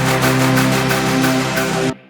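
Background music with a steady beat and held synth tones, cutting off abruptly near the end.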